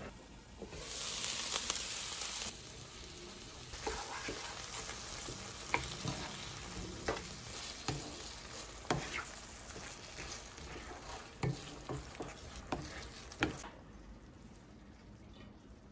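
Chopped cabbage and onion sizzling in a ceramic-coated frying pan, with a louder burst of sizzling about a second in. A wooden spatula then stirs the vegetables through melting jjajang sauce, knocking against the pan about a dozen times, until the frying sound cuts off near the end.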